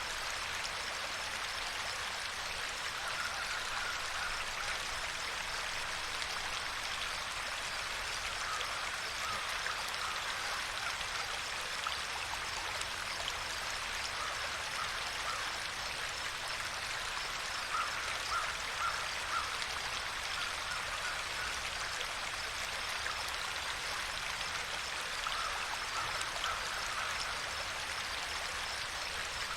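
Steady rush and trickle of a flowing stream, with a few brief clusters of short higher notes over the water now and then.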